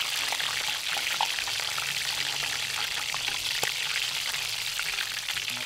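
Battered oysters deep-frying in hot oil in a wok: a steady sizzle with scattered small crackles and pops.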